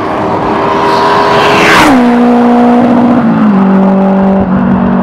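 Boosted Honda Integra DC5 (K20 engine) passing at speed on a fly-by. Its engine note climbs slightly as it approaches, drops sharply in pitch as it goes past about two seconds in, then holds a lower steady note, stepping down twice as it draws away.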